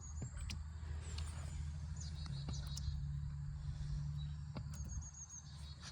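Songbirds chirping in short high trills over a steady low rumble, with a few faint clicks.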